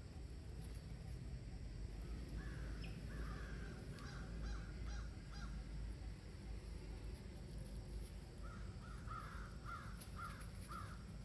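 Crows cawing: short harsh calls in small groups, with a quicker run of about seven caws near the end.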